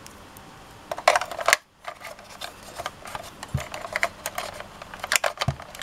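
Small plastic clicks and taps of a vintage Kenner A-Wing Fighter toy being handled as an action figure is pressed down into its cockpit, with a quick cluster of clicks about a second in and scattered lighter clicks after.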